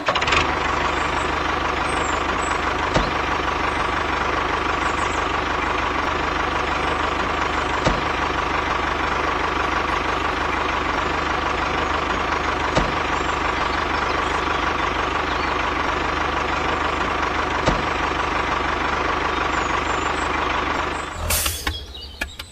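A steady tractor engine sound running evenly, with a faint click about every five seconds. It stops about a second before the end.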